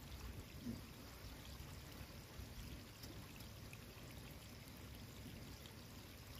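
Faint, steady rush of running water, even and without breaks.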